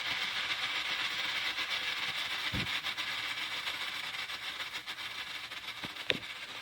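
A lit ground firework hissing steadily and slowly dying down. A dull thump comes about two and a half seconds in, and a sharp pop near the end.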